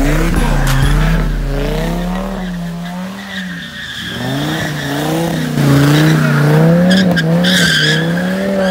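Pickup truck spinning its tyres: the engine revs up and down in repeated waves while the tyres squeal, getting louder about two-thirds of the way in.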